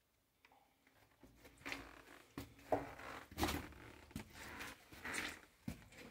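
Irregular scuffs and crunches of someone moving over a loose, stony rock floor, with clothing rustling close to the microphone, starting about a second in.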